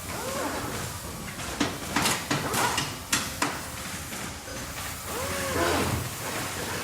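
Factory ambience: a steady mechanical noise bed with a quick run of sharp metallic clanks and knocks in the middle, and short gliding squeals near the start and again near the end.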